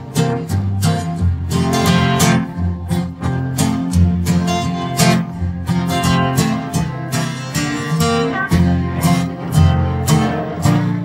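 Acoustic guitar strummed in a steady rhythm: an instrumental track taken from a live recording, with the vocals stripped out by source separation.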